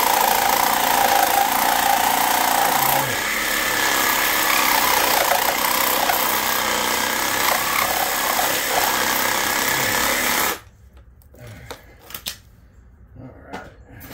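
A handheld power tool running continuously at full power, with a shift in its tone about three seconds in. It cuts off suddenly about ten and a half seconds in, leaving light clicks and knocks of metal being handled.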